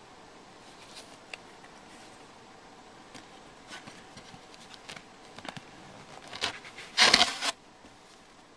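Items being handled and taken out of a box: faint clicks and scrapes, then a loud rustle lasting about half a second around seven seconds in.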